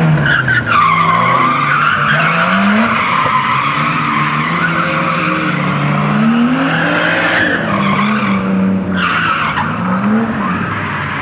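Drift car sliding through the course, its tyres screeching continuously while the engine revs rise and fall about three times.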